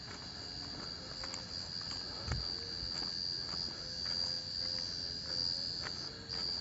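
Steady high-pitched drone of forest insects, with a few faint clicks and a single low thump about two seconds in.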